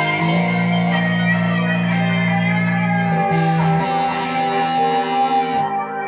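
Electric guitar playing held, sustained chords that change a few times, with no speech.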